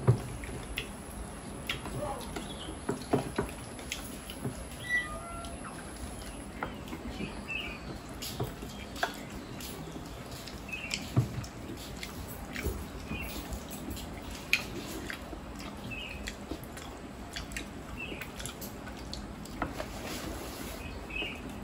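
Wet mouth sounds of people eating rice and vegetable curries by hand: chewing and lip-smacking, with many small irregular clicks.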